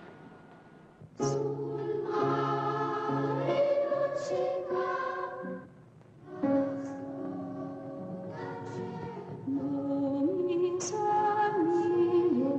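A group of boys singing long held notes together, stepping up and down in pitch as a solfège exercise, over piano accompaniment. It starts about a second in and breaks off briefly near the middle.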